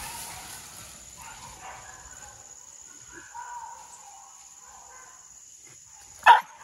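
A dog barks once, loud and sharp, near the end: the first of a run of barks. Before it there is a quiet stretch with a steady high-pitched hiss and a few faint distant calls.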